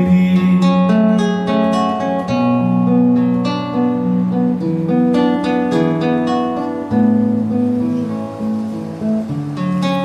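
Solo acoustic guitar fingerpicked without singing: an instrumental passage of plucked chords and melody notes, changing every second or so.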